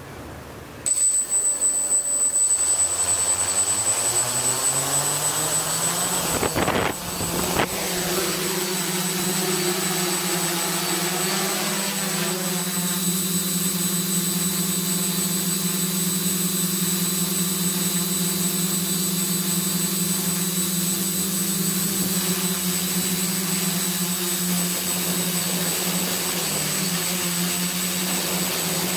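Quadcopter's electric motors and propellers spinning up about a second in, rising in pitch over several seconds as it lifts off, then a steady buzz with a high whine as it climbs, heard from a camera mounted on the craft.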